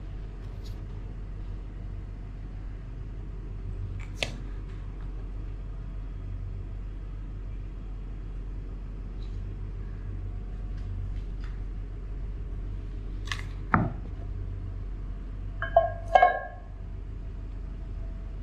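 A tin can used as a cutter knocking and tapping a few times on a wooden board as it is pressed through rolled dough, the loudest knocks near the end. A steady low hum runs underneath.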